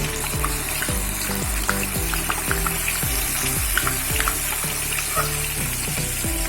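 Onion paste sizzling steadily as it fries in hot oil and ghee in a pan.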